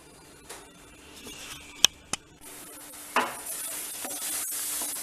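A spoon clicks a couple of times against a pan. About halfway through, a steady sizzle sets in as mango pulp and sugar cook down in the pan while being stirred, with a knock of the spoon as the stirring starts.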